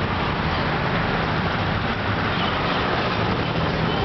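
Steady street traffic noise, with the low hum of vehicle engines.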